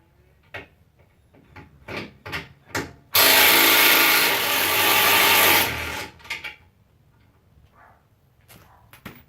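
A power tool runs in one steady burst of about two and a half seconds, spinning out a bolt on the truck's bumper mounts. Light clicks and clinks of handled tools and parts come before and after it.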